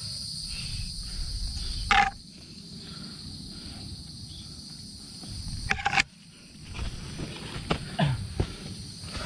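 A steady, high-pitched drone of insects runs throughout. Over it are low rustling and handling noise, two loud sharp knocks about two and six seconds in, and short grunts or heavy breaths near the end.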